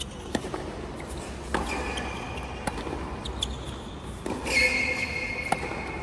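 Tennis ball struck by rackets and bouncing on a hard court during a rally: a serve, then sharp hits about a second apart. High squeaks of players' shoes on the court come in between, the longest about two-thirds of the way through.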